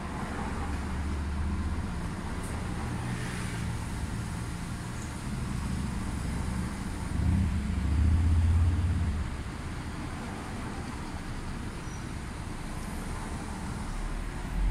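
Coach's engine running in slow stop-and-go traffic, a low rumble heard from the driver's cab, swelling louder for a couple of seconds about seven seconds in as the coach pulls forward, over a hum of surrounding traffic.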